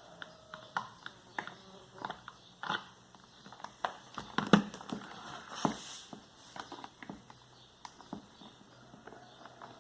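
Hard plastic parts of a pedestal fan's motor housing being handled and worked loose: irregular clicks and knocks, the loudest about four and a half seconds in.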